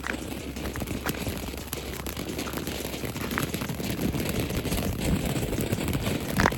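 A firework burning with a steady hiss and scattered sharp crackles, slowly growing louder, with a loud bang right at the end.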